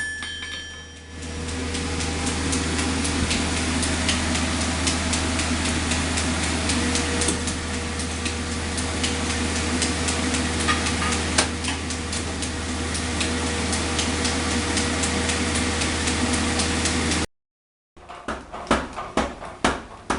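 Power hammer pounding a hot Damascus steel billet in a fast, steady run of blows over a constant machine hum. After a brief break near the end, single sharper hammer blows strike a few times a second.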